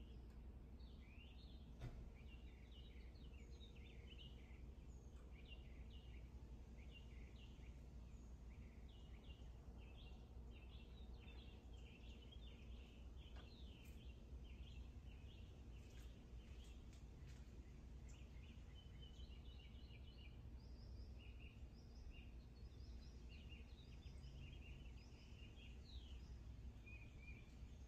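Near silence: faint birds chirping continually over a low steady background rumble, with one light tap about two seconds in.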